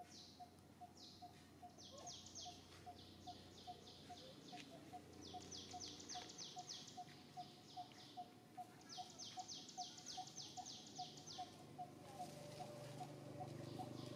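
Faint outdoor wildlife calls: a steady series of short, low notes about three a second, over bursts of rapid high-pitched chirps that come every second or two.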